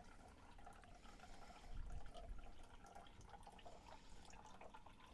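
Near silence: faint room tone with a brief soft low rumble about two seconds in.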